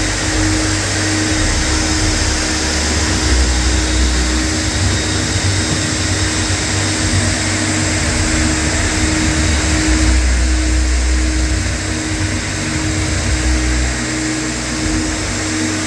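Charnock C-260 wet and dry vacuum cleaner running steadily: a constant motor hum under the rush of air, with an uneven low rumble.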